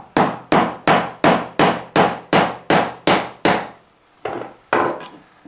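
Claw hammer striking a blunt chisel to chop the rounded end of a routed truss-rod channel square in a wooden guitar neck: a run of about eleven sharp strikes, roughly three a second, then a pause and two more.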